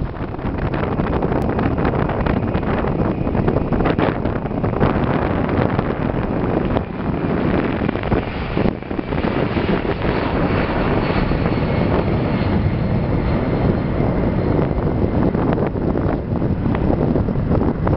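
The four Pratt & Whitney F117 turbofan engines of a CC-177 Globemaster III (C-17) jet transport running at takeoff thrust during its takeoff roll: a loud, steady jet noise.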